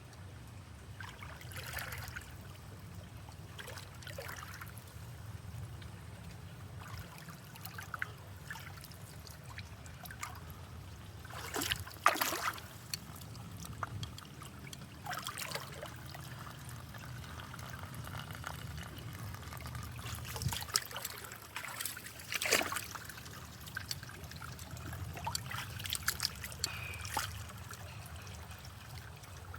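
Water trickling and splashing steadily, with short louder splashes now and then; the biggest come about twelve seconds in and again about twenty-two seconds in.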